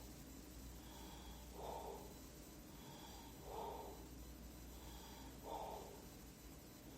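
Faint, noisy breaths recurring about every two seconds, three in the span.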